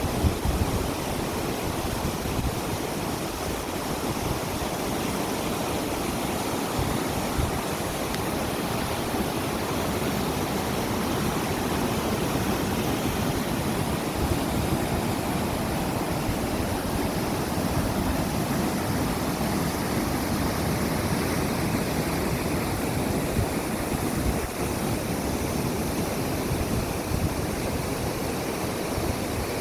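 Mountain stream water rushing steadily, an even unbroken rush with no pauses.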